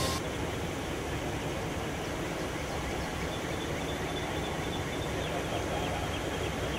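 Steady outdoor background noise: an even rushing hiss over a low rumble, without any distinct events.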